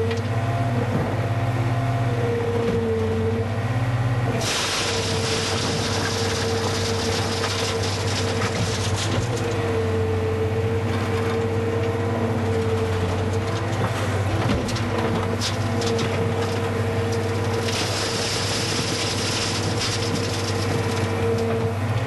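Skid steer loader's engine running steadily with a constant hum and whine, and a hiss that swells about four seconds in and again near the end.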